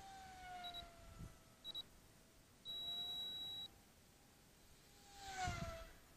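Brushless electric motor and propeller of a small RC pylon racer whining as it flies, its pitch bending as it moves; about five seconds in a louder pass sweeps down in pitch as it goes by. An electronic beep sounds about once a second at first, then one longer beep about three seconds in.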